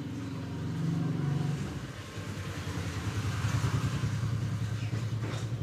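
A motor vehicle engine running, its low hum dropping in pitch about one and a half seconds in, then growing louder.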